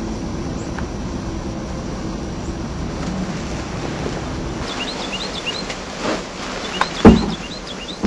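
A steady low rumble, then from about halfway a small bird chirping in quick runs of short high notes. About seven seconds in there is one loud, dull thump.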